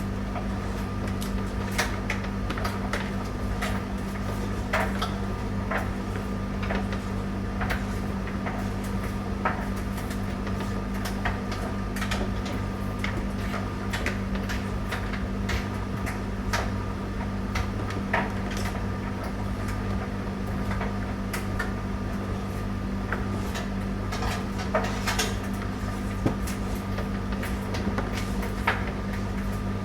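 Tumble dryer running with a steady low hum, and frequent irregular light clicks and knocks from the turning drum.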